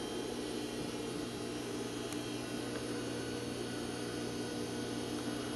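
Steady low hum with an even hiss, unchanging throughout; no stitching is heard.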